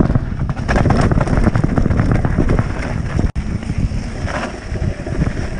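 Mountain bike riding fast down a rocky dirt trail: wind buffeting the microphone over a constant clatter of tyres and bike parts rattling on stones and gravel. The sound drops out for an instant a little past halfway.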